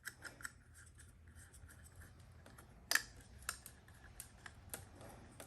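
Faint scattered clicks and small knocks of a motorcycle speedometer's parts being handled and fitted back together by hand, with one sharper click about three seconds in.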